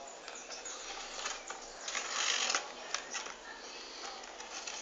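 Packaging being handled: scattered small clicks and rustling, with a louder rustle a little past the middle.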